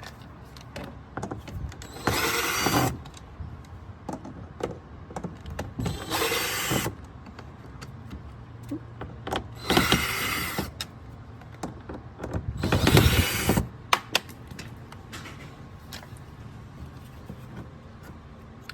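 A cordless drill/driver running in four short bursts of about a second each, backing out the screws that hold the factory door speaker, with small clicks and handling noise between bursts.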